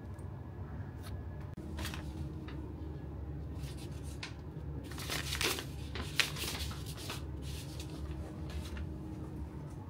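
Scattered rustling and light clicks of things being handled, over a steady low hum, with a denser stretch of rustling about halfway through and one sharp click just after it.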